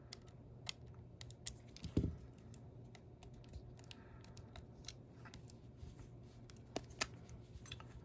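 Faint, scattered small clicks and taps from a small plastic action camera being handled and worked on, with one duller knock about two seconds in, over a faint low hum.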